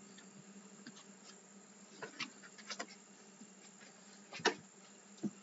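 Tarot cards being handled, with a few soft taps and rustles as cards are turned up from the deck. A faint low hum runs underneath.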